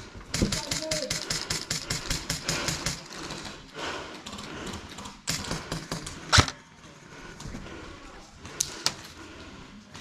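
Airsoft gun firing: a fast, evenly spaced string of sharp shots for about three seconds, then single sharp shots about six seconds in and twice near the end.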